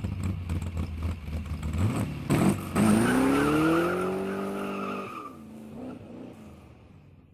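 Motor vehicle engine sound: a low rumble, then revving up in pitch and holding high for about two seconds before dropping back and fading out, cut off abruptly at the end.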